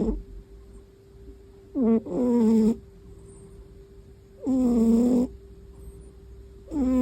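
Sleeping cat snoring: pitched snores under a second long, coming about every two and a half seconds with quiet breathing gaps between.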